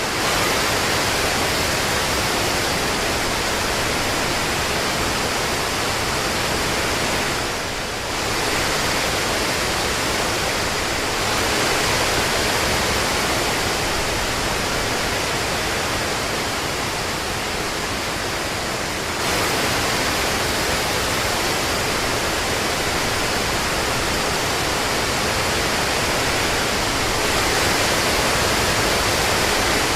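Steady rain, a dense even hiss of falling drops, dipping briefly about eight seconds in.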